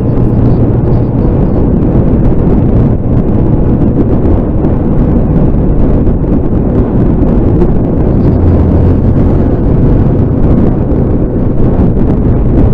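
Motorcycle riding at speed: heavy wind buffeting on the action camera's microphone, with the engine's steady low hum underneath.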